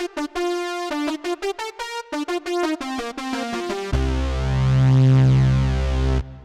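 3rd Wave wavetable synthesizer playing a factory patch: a quick run of short, bright notes, then about four seconds in a held low chord with heavy bass that swells and cuts off just before the end.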